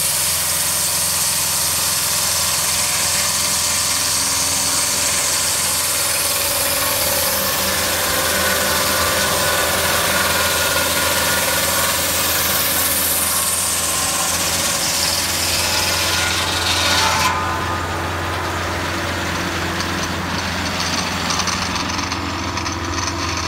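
D&L 1224 swing blade sawmill running, its engine-driven circular blade sawing through timber with a loud, even hiss over a steady engine hum. About three-quarters of the way through, the cutting noise stops suddenly as the blade leaves the cut, and the engine keeps running.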